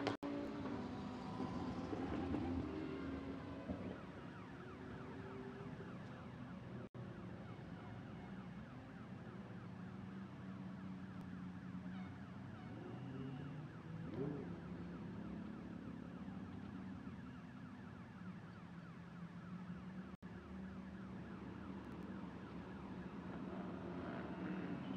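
Race car engines running at low revs, steady for long stretches, with the pitch gliding up and down a few times.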